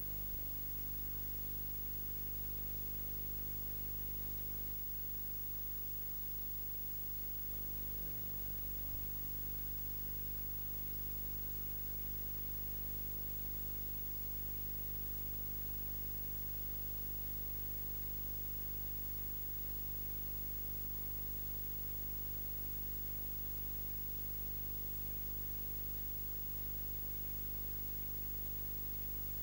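Steady electrical hum with many harmonics over a constant hiss, with no room sound at all: a camcorder recording with its microphone unplugged. Two faint clicks, one right at the start and one about eight seconds in.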